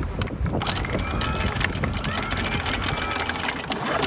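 Anchor chain clattering link by link at the bow of a sailing yacht: a rapid, irregular run of metal clicks.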